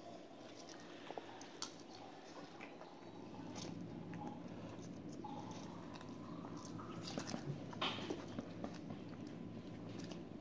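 Faint sounds of children eating instant noodles: soft chewing and slurping, with scattered light clicks.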